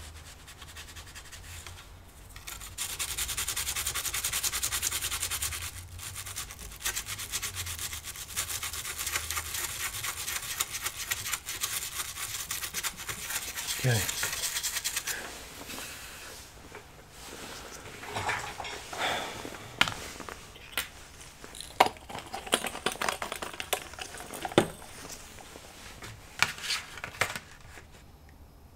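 A brush scrubbing fast over a laptop motherboard wet with isopropyl alcohol, cleaning the pins of the Super IO chip. The steady scrubbing starts a few seconds in and lasts about twelve seconds, then gives way to scattered light clicks and taps.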